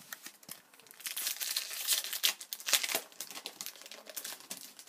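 Foil wrapper of a hockey trading-card pack crinkling and tearing as it is handled and opened, a dense crackle that swells about a second in and thins out toward the end.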